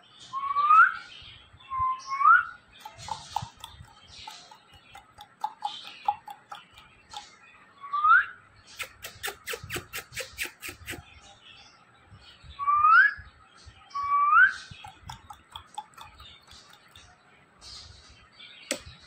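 A person whistling short rising notes, five upward glides, to a ringneck parakeet. Soft short chirps come between the whistles, and there is a quick run of sharp clicks about nine seconds in.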